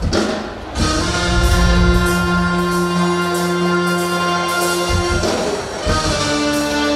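Title music with long held chords, moving to a new chord about five and a half seconds in.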